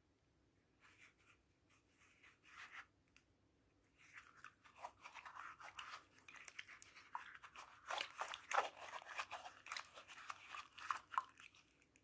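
Wet cross-stitch canvas being rubbed and squeezed by hand in soapy water, making a faint crackling and squishing. It is sparse at first and grows busier about four seconds in.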